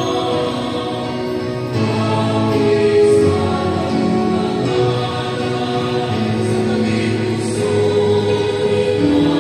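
Slow choral singing of a hymn-like song, many voices holding long notes that change slowly.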